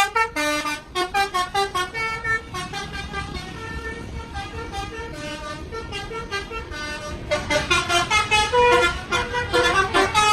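Bus 'telolet' musical air horns playing quick runs of notes, like a short tune. The notes are quieter through the middle and loud again over the last few seconds.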